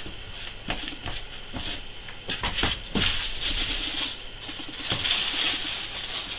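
Paint roller being worked through wet emulsion paint in a tray: a sticky, rasping hiss in a few bursts, the longest about halfway through, with light knocks between.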